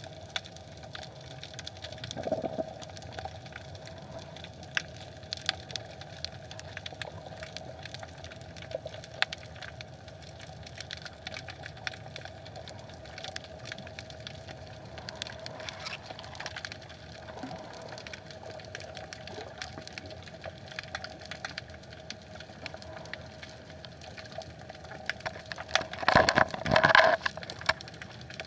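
Underwater ambience: a constant crackle of scattered sharp clicks over a faint steady hum, with a louder burst of knocking and rustling about a second and a half before the end.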